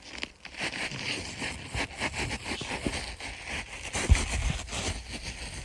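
Flat pry bar scraping and prying under an asphalt roof shingle, giving irregular crackling and scraping with a sharp knock about four seconds in.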